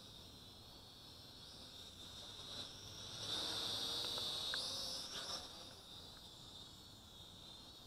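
Crickets trilling steadily in the night. From about three to five seconds in, a louder high whine that steps up in pitch rises over them: the small toy quadcopter's motors as it flies close.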